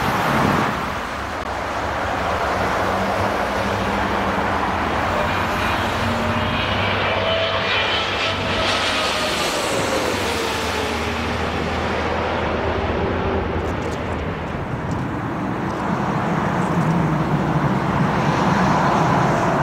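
Twin-engine widebody jet airliner on final approach with its gear down, a steady jet engine noise. Around the middle it passes low overhead and a high engine whine slides down in pitch.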